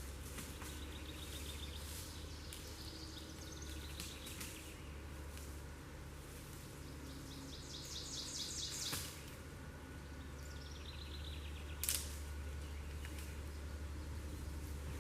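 A songbird sings a trilled phrase four times over a steady low rumble. A sharp knock comes about nine seconds in, and a louder one near twelve seconds.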